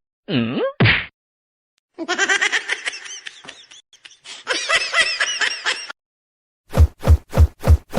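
High-pitched laughter in rapid repeated bursts for several seconds, after a brief squeaky call that falls and rises. Near the end, a run of even beats about three a second begins.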